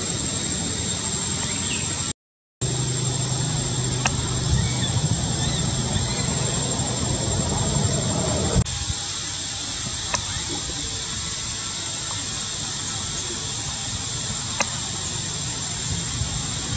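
Outdoor ambience: a steady hiss with a constant high-pitched whine and a low hum, cut by a brief dropout about two seconds in and changing abruptly about eight and a half seconds in. A few faint clicks and short chirps; no loud cries.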